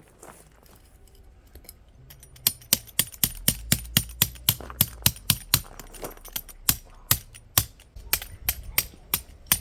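A hammer driving tent pegs: a rapid, even run of sharp metallic strikes, about three a second, starting about two seconds in.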